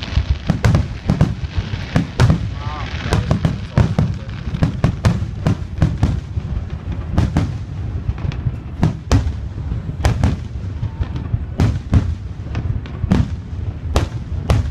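Fireworks display: a rapid barrage of aerial shells bursting, with loud bangs coming two or three a second over a continuous low rumble.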